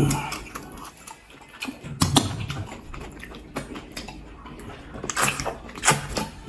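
Close-miked eating sounds of pounded yam fufu and pepper soup: soft wet chewing with scattered sharp mouth clicks and smacks, and a brief low hum about two seconds in.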